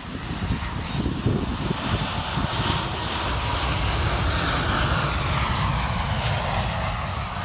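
Jet engines of a Boeing 737 MAX 8 landing and rolling out on the runway: a steady roar that swells to its loudest about halfway through, with a whine falling in pitch as the airliner passes.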